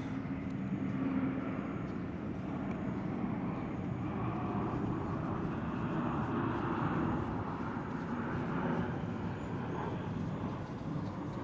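A fat cat's steady, low rumbling breath sounds as its belly is massaged.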